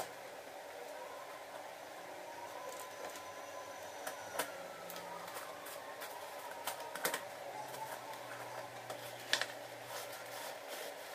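Scattered light clicks and taps of a plastic jar and its screw-on plastic lid being fitted and handled, the sharpest tap about nine seconds in, over a faint steady hum.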